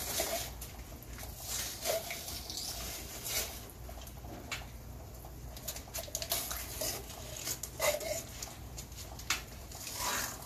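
Scattered light clicks and taps of metal engine parts being handled and set on a 2JZ cylinder head while a billet aluminium valve cover is test-fitted, over a steady patter of rain.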